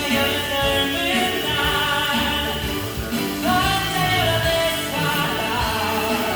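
Background music: a song with a singing voice over instruments and a steady bass.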